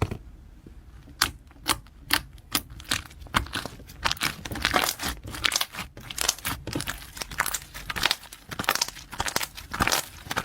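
Slime being squished and stretched by hand, giving a rapid, irregular run of sticky clicks and pops that thickens after about a second.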